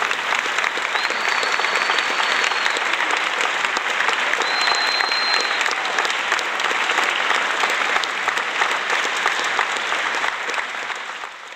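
Crowd applause, a dense patter of many hands clapping, with two faint high whistles early on, fading out near the end.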